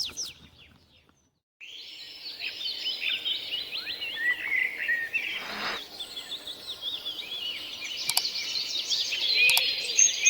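A chorus of small birds, many short overlapping chirps and twitters. It starts abruptly after about a second and a half of silence and grows louder toward the end.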